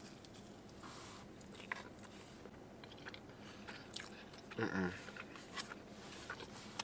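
A person chewing a mouthful of chicken bacon ranch pizza, faint, with many small mouth clicks; a short hum from the eater a little past the middle.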